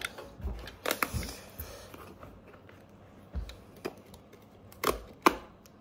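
Stitching holding the sole on an old leather cowboy boot being cut with a hand knife: a few sharp, irregular clicks and snaps as the threads part and the blade works against the sole.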